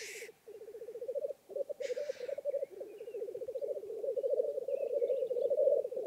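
Black grouse males at a lek, giving their continuous bubbling, cooing song of rapid pulses, which grows louder. It is broken by two short hissing calls, one right at the start and one about two seconds in.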